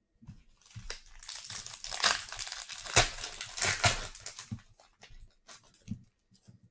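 Foil trading-card pack wrapper crinkling and crackling as it is handled and torn open. The crackle builds about a second in, is loudest in the middle, and trails off into a few light clicks.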